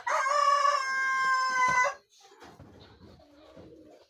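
A rooster crows once, loud and close, one call of about two seconds that cuts off sharply.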